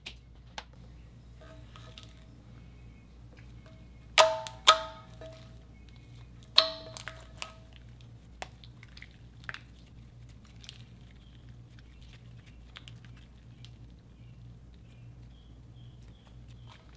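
Hands stretching and folding fluffy white slime, making small scattered crackles and clicks, with three loud sharp pops about four, four and a half and six and a half seconds in.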